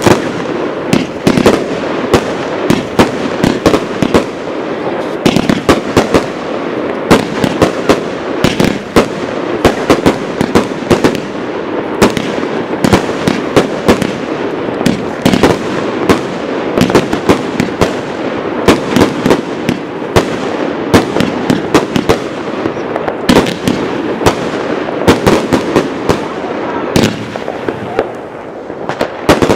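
New Year's Eve fireworks: rockets and firecrackers going off in a loud, dense barrage. Sharp bangs come several times a second over a constant crackling din, with no let-up.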